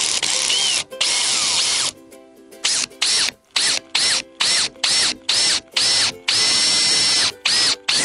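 Electric drill with a twist bit boring into a bus's painted body panel, run in short trigger bursts, its motor whining up to speed each time. First two longer runs, then a string of quick bursts about two a second, one held for about a second.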